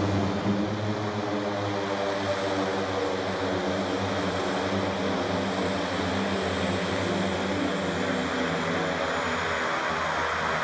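de Havilland Canada Twin Otter turboprop engines and propellers running at taxi power as the plane taxis toward the listener: a steady hum of several pitched tones over a hiss that grows brighter near the end.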